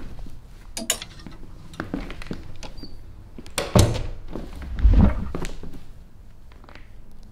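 Knocks and clicks of a closet door and things being handled, then two heavy thumps about four and five seconds in, followed by a few lighter knocks.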